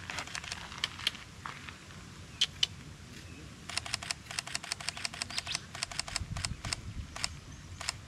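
Sony a7 IV camera shutter: a few single shots, then a rapid continuous burst of clicks lasting about two and a half seconds from about halfway in, then a couple more single shots.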